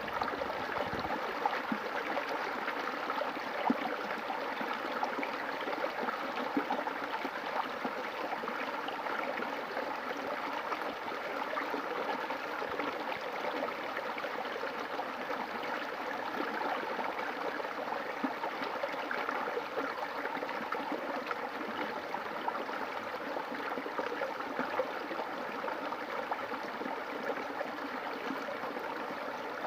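River water flowing steadily, with small splashes here and there.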